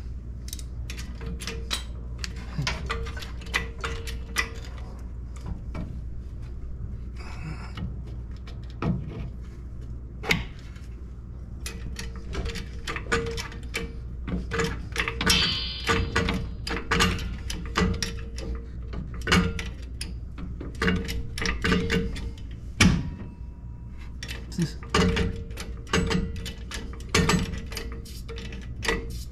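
Hand tools working on metal suspension parts as an upper ball joint is bolted in: irregular clicks, clinks and knocks of a wrench and ratchet, over a steady low hum.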